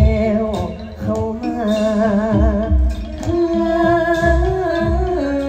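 Likay singing: a voice with a wide, wavering vibrato on long held notes over band accompaniment with a steady low beat.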